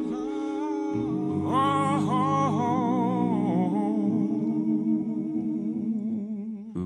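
Slow vocal music: a singer holds long notes with a wide vibrato over a steady sustained drone.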